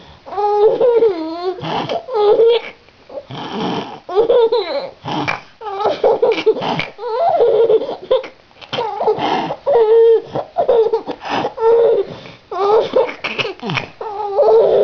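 A young child giggling and laughing in repeated high-pitched fits, with breathy gasps between the bursts of laughter.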